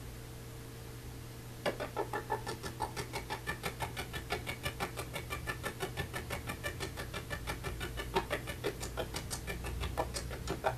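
An animal calling in a rapid, unbroken run of short clucking notes, several a second, that starts about two seconds in, over a steady low hum.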